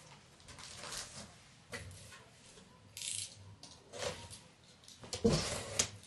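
Cardboard boxes being handled and the packing tape on one slit with a utility knife: irregular scraping and rustling of cardboard, loudest about five seconds in.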